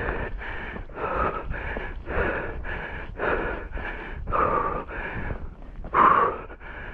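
A person breathing hard, loud rapid panting at about two breaths a second while walking fast, with one heavier breath about six seconds in.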